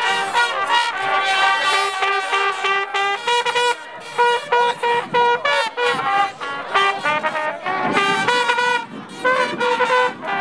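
Several brass trumpets blaring together in runs of short repeated notes, with a couple of brief breaks.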